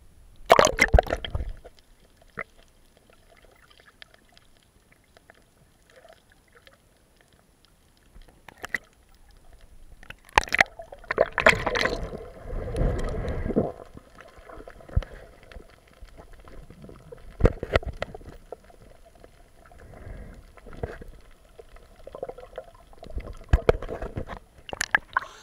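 Sea water heard through a submerged action camera: a splash as it goes under about a second in, then muffled underwater sloshing and gurgling with a few sharp clicks, busiest in the middle.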